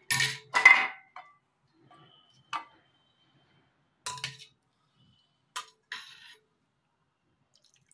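Kitchen utensils clinking and knocking against steel pots: a louder clatter in the first second, then scattered single clinks as a steel ladle stirs thin tamarind rasam in a steel bowl.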